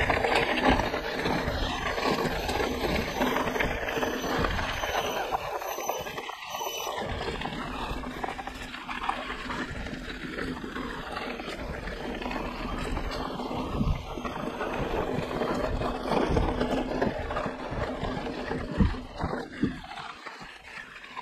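Mountain bike ridden along a dirt trail, heard from a camera strapped to the rider: a steady rush of wind and tyre noise, with a few sharp knocks over bumps.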